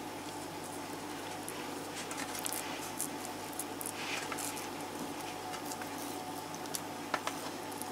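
Soft, faint patting and rustling of fingers pinching and folding the raw dough rim of a pizza and brushing over shredded cheese, with a few light clicks scattered through, over a steady faint hum.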